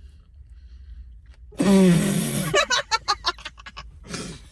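A loud, low, rasping human burp about a second and a half in, lasting about a second, followed by a quick run of short, choppy vocal bursts.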